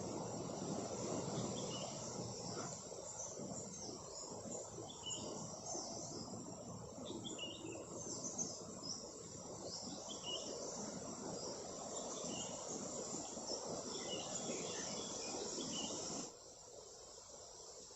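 Crickets and other insects chirping in a dense chorus: many short, high chirps over a steady high-pitched hum, with a rushing noise underneath. The rushing noise drops away suddenly near the end, leaving the insects quieter.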